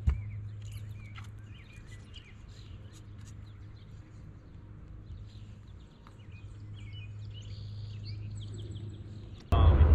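Small birds chirping and singing over a steady low hum. A loud rumbling noise cuts in abruptly near the end.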